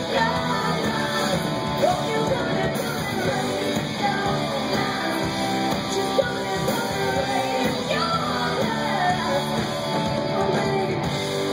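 Live rock band playing: electric guitars, bass guitar and drums, with a woman singing lead.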